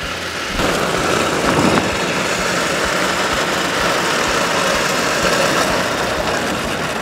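Wood pellets pouring in a steady stream from a 20-pound bag into the hopper of a Pit Boss vertical pellet smoker, starting about half a second in.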